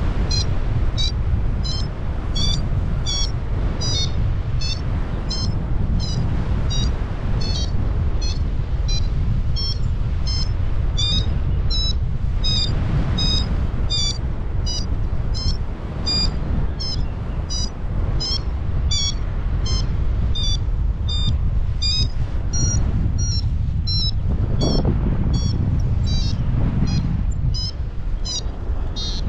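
Paragliding variometer beeping about twice a second, its pitch rising and falling; the beeping signals the glider is climbing in lift. Steady wind noise on the microphone underneath.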